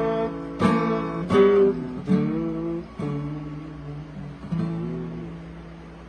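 Steel-string acoustic guitar strummed in a few last chords, the final one about halfway through, then left to ring and die away as the song ends.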